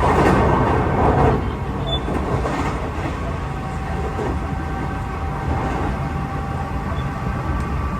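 Nishitetsu Tenjin-Ōmuta Line limited express train running, heard from inside the car: a steady low rumble. There is a louder rush of noise in the first second or so, and a thin steady tone comes in a few seconds later.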